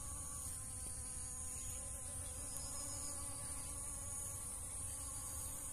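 Honeybees buzzing at a dragon fruit flower, over a steady high-pitched insect drone that runs without a break.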